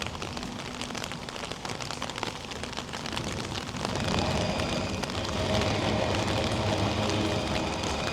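Rain pattering on a hard surface, a dense hiss of many small drop impacts. A low steady rumble, like a vehicle engine, comes in about halfway through.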